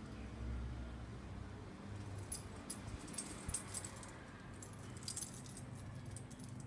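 Light jingling clinks, scattered from about two seconds in until near the end, over a low steady hum.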